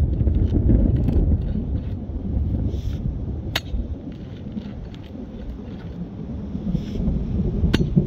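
Low rolling rumble of thunder, strongest at first, dying down and building again near the end, with two sharp knocks, one about three and a half seconds in and one near the end.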